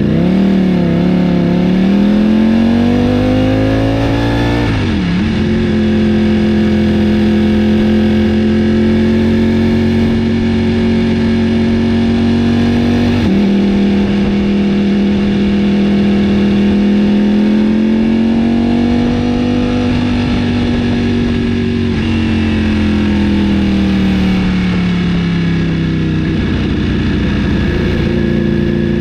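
Ducati Panigale V4's Desmosedici Stradale V4 engine running at raised revs. The pitch wavers and climbs over the first few seconds, dips sharply and recovers about five seconds in, then holds fairly steady with slow rises and falls.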